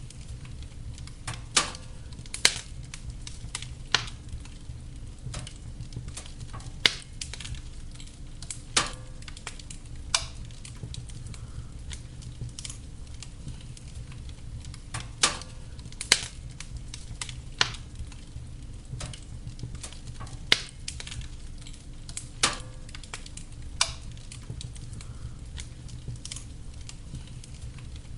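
Wood fire in a fireplace crackling, with sharp pops at irregular intervals over a steady low rumble of the flames.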